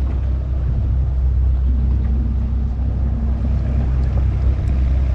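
Steady low rumble aboard a small fishing boat, with wind buffeting the microphone and water around the hull.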